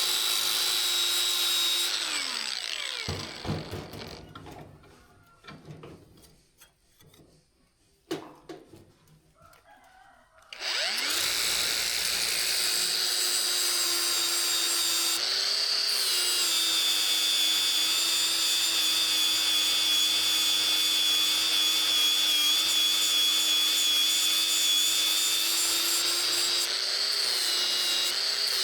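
An electric power tool's motor running with a steady high whine. It winds down a couple of seconds in, leaving a quiet stretch with a few knocks and taps, then starts up again at about the middle and runs steadily.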